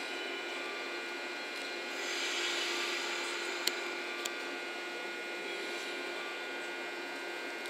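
JNR 117 series electric train at a station platform, with a steady electrical hum carrying several fixed tones. A swell of hiss comes about two seconds in, and two sharp clicks follow about half a second apart near the middle.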